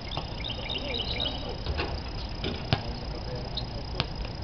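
Basketball bouncing on an outdoor court: a few sharp, widely spaced smacks over a low rumble, with faint distant voices. A short run of high chirps comes in the first second.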